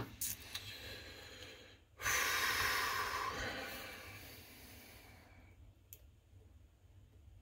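A long breath out close to the microphone, starting suddenly about two seconds in and fading away over a few seconds. A few small metallic clicks from the lock-picking tools come at the start and once more near the end.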